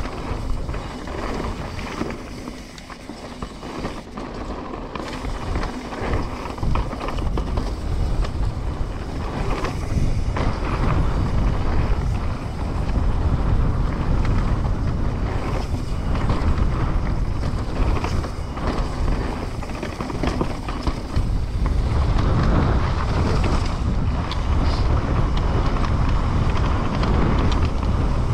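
Trek Slash 9.9 enduro mountain bike running down a trail: wind rushing over the action camera's microphone over the low rumble and clatter of tyres and bike on the rough ground. A bit quieter a couple of seconds in, louder from about ten seconds on.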